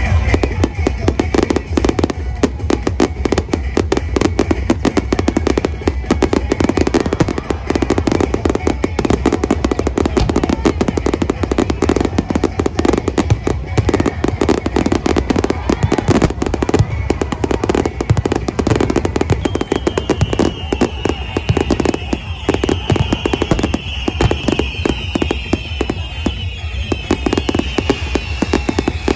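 Aerial fireworks bursting in rapid, unbroken succession, with dense crackling and deep booms, alongside music. A high wavering sound joins about twenty seconds in.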